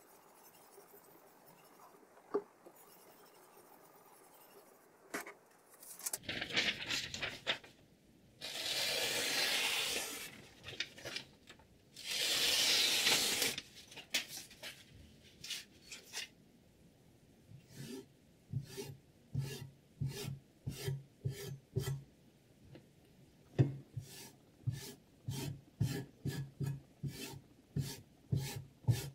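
Sharpening stone of a guided knife-sharpening system rasping along the edge of an M390-steel chef knife. Two long strokes are followed by a steady run of short, quick strokes at about two a second.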